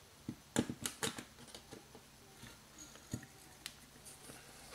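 Light clicks and taps of pliers and a thin wire being bent and shifted over a sheet of paper on a table: a quick cluster about half a second to a second in, then a few scattered clicks.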